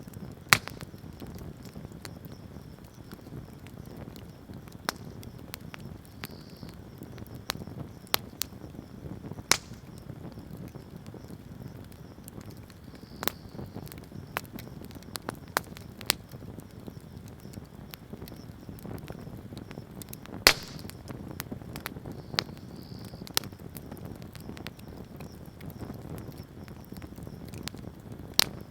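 Wood bonfire burning: irregular sharp crackles and pops over a low steady rustle of flame, with the loudest pops just after the start and about two-thirds through.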